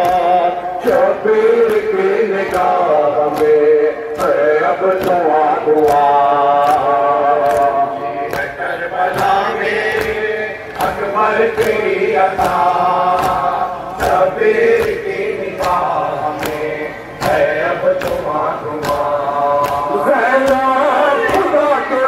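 A group of men chanting a nauha mourning lament together, over a steady beat of open-hand slaps on the chest (matam).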